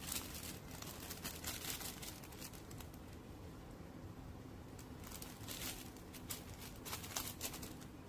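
Plastic packaging crinkling and rustling as filter packets are handled, in irregular crackly bursts.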